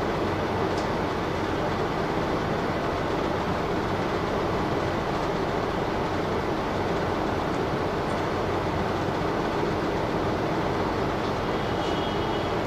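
Steady interior running noise of a city bus standing at a stop, its engine idling, with a faint, brief high-pitched squeal near the end.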